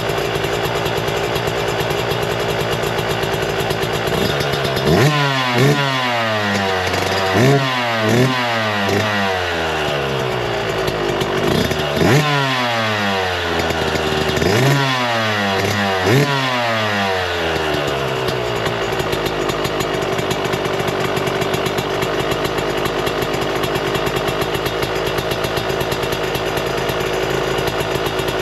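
Yamaha YZ125's single-cylinder two-stroke engine with a newly installed Bill's Pipes exhaust, idling, then blipped about ten times in quick bursts, each rev rising sharply and falling back, before it settles back to a steady idle.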